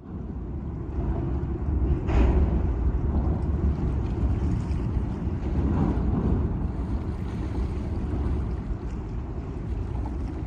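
Wind buffeting the microphone: a loud, steady low rumble with no pitch to it, with one sharp knock about two seconds in.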